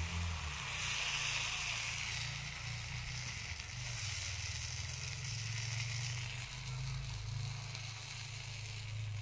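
A thin batter pancake sizzling in a hot pan over a wood fire, a steady hiss that is loudest in the first couple of seconds, with a low rumble underneath.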